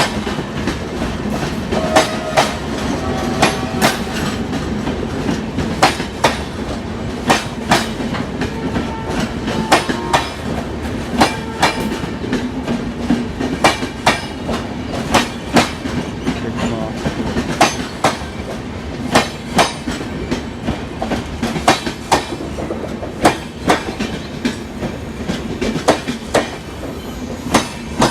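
Passenger coaches of an arriving express train rolling past, wheels clacking over the rail joints under a steady rumble, with a few short wheel squeals.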